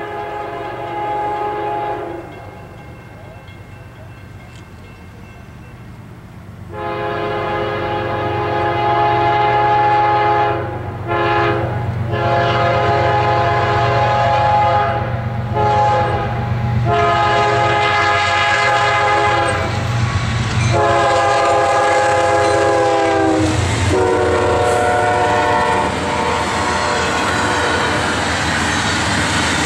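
Horn of a CSX GE ES40DC diesel locomotive leading a double-stack freight train, sounding a series of long blasts with short breaks; the horn drops in pitch as the locomotive passes. Near the end the horn stops and the rumble and clatter of the stack cars rolling by takes over.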